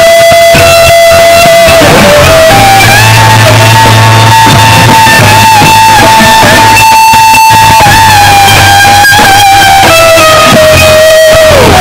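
Electric guitar played live through loud stage amplifiers: a slow lead line of long sustained notes held with slight vibrato, stepping up to a higher note a couple of seconds in and back down near the end, with quick dives in pitch that swoop back up near 2 s and just before the end, over a steady low note underneath.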